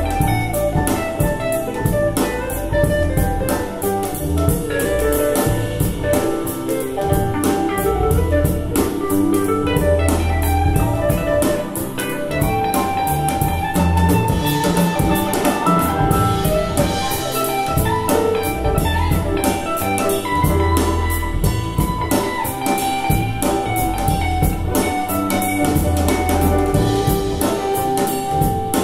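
Music with drums and a steady beat over bass notes.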